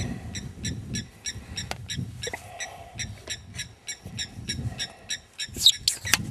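A bird calling in the background with short high chirps, evenly repeated about three times a second. A louder sweeping call comes near the end, over a low uneven rumble.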